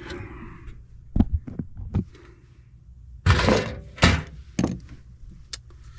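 Handling knocks and thunks: a few sharp knocks, then two louder clattering scrapes about three and four seconds in, and a couple more knocks.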